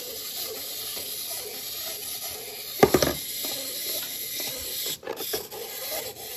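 A small plastic wind-up toy figure whirring on a plastic tub lid, with one loud plastic clatter about three seconds in as it tips over onto the lid; a few light plastic clicks follow near the end.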